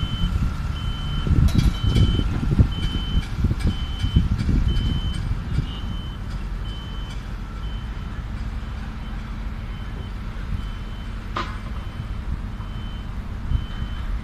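A construction vehicle's reversing alarm beeping steadily, a little more than one beep a second, over the low rumble of heavy diesel machinery. A single sharp knock about eleven seconds in.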